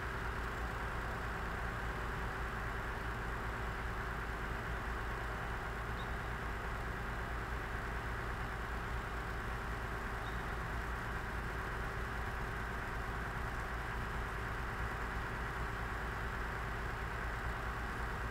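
Heavy equipment's diesel engine idling steadily, a constant low hum with no change in speed.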